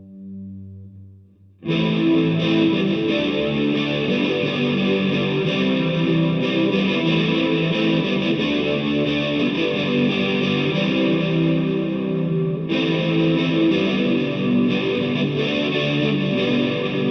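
Electric guitar, a Les Paul-style guitar played through a DigiTech GNX3 multi-effects preset and amplifier. A sustained note fades out, then heavily distorted riffing starts abruptly about two seconds in and carries on.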